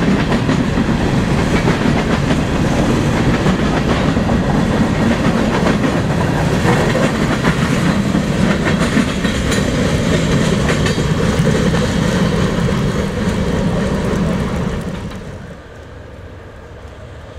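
CSX freight train cars rolling past at speed: a loud, steady rumble with repeated clicks from the wheels. The sound falls away about fifteen seconds in as the end of the train goes by.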